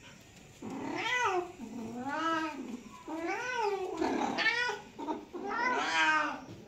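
A cat meowing repeatedly: about five drawn-out meows, each rising and falling in pitch, starting a little over half a second in, the last one the loudest.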